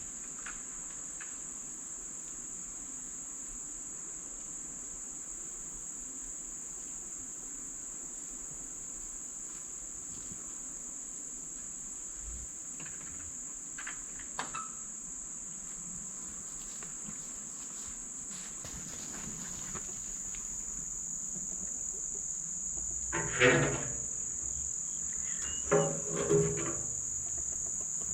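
A chorus of insects shrilling in one steady, high-pitched drone. Near the end, two short, louder pitched sounds break in.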